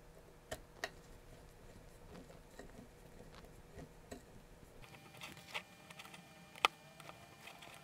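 Faint, scattered clicks and ticks of a small screwdriver and tiny M1.5 screws being tightened into a servo arm. Two sharper clicks come about half a second in, and the loudest single click comes near the end.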